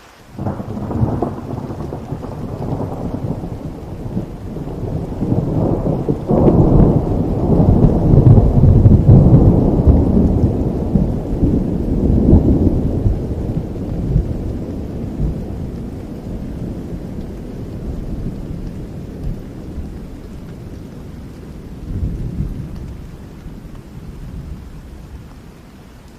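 Rain falling with a long roll of thunder. The thunder breaks in sharply just after the start, is loudest several seconds in and slowly dies away, with a smaller rumble near the end.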